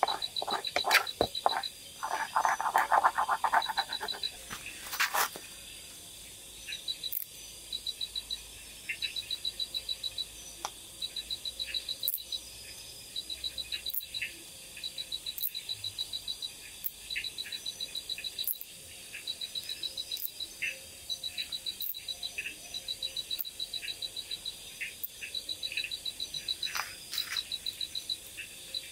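For the first few seconds a spoon clicks and scrapes as it stirs food in a cooking pot over a campfire. After that there is a steady night-time chorus of high, rapidly pulsed chirping trills from calling animals, broken by occasional sharp crackles.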